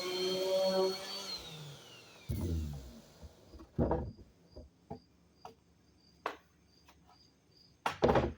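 Electric sander running, then switched off and spinning down about a second in, its pitch falling away. Then knocks and clatter of wood being handled, loudest around four seconds in and near the end, with a faint regular ticking of crickets behind.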